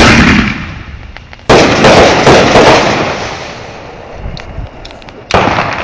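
Fireworks going off: three loud booms, one at the start, one about a second and a half in and one near the end, each fading slowly. Crackling follows the second boom.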